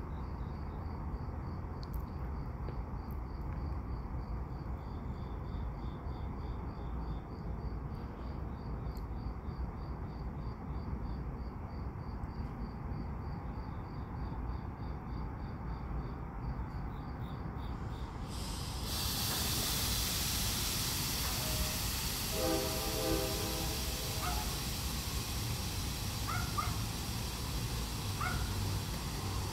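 A CSX freight train's locomotives running with a low steady rumble while the train stands or creeps, and crickets chirping in a steady pulse. About two-thirds of the way through, a steady hiss comes in and stays, with a few short tones soon after.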